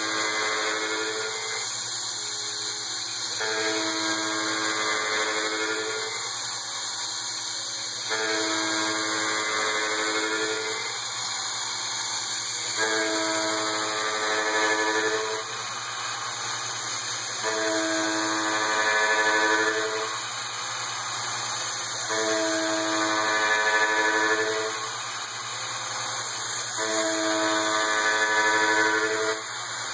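Taig CNC mill with a three-flute carbide end mill cutting aluminium: a pitched whine from the cutter comes and goes in a regular cycle, about two and a half seconds on and two off, as the tool loads and unloads on each pass around the pocket. A steady hiss runs underneath.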